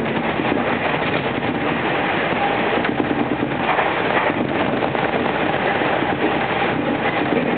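Interior running noise of a Tobu Isesaki Line express commuter train at speed: a steady rumble of wheels on rail.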